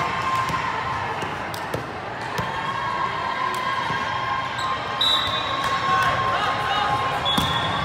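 Volleyballs being hit and bouncing in a large multi-court gym: scattered sharp smacks over a steady hubbub of players' and spectators' voices, with a few high held tones.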